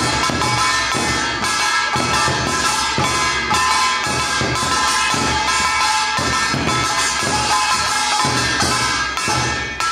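Korean folk band music: a shrill reed horn holding high, steady notes over a steady drum beat with tambourine-like percussion, stopping suddenly at the end.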